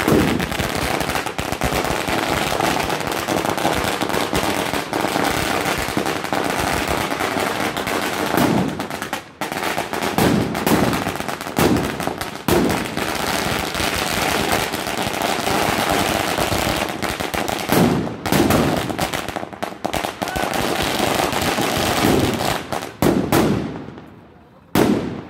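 A long string of firecrackers going off in a rapid, continuous crackle, with louder bangs mixed in every few seconds, dying away near the end.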